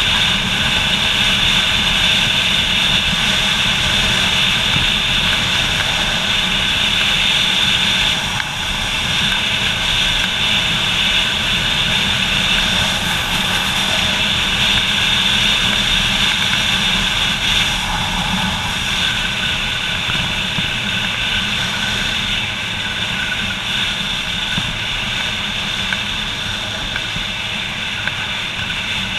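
Motorcycle cruising at steady speed, heard from a camera mounted on the bike: engine drone mixed with wind rush. The level dips briefly about eight seconds in.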